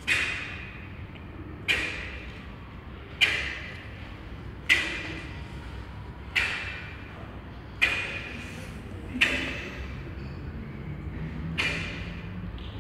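Crisp snaps of a cotton taekwondo uniform cracking as each technique of an ITF pattern is executed, about one every second and a half, eight in all, with a longer pause before the last. Each snap rings briefly in the hall's echo.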